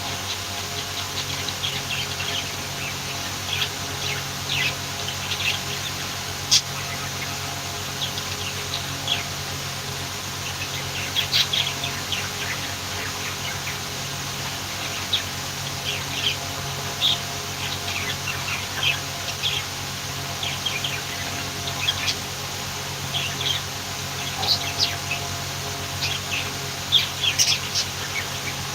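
Budgerigars chirping and warbling: many short, high chirps scattered throughout, over a steady low hum.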